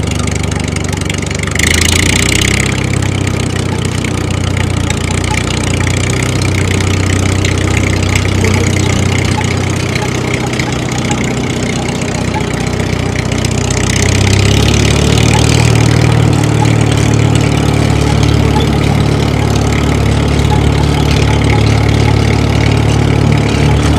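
Tractor engine running steadily, with two short surges of hissier noise about two seconds in and again about fourteen seconds in. After the second surge it runs a little louder.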